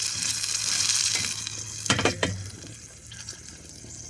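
Single-ring propane burner hissing under a pot while it is turned down: a few clicks come about two seconds in, and after them the hiss drops much quieter.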